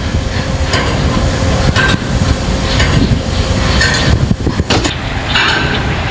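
Heavy machinery running with wind buffeting the microphone, and a few short metallic knocks.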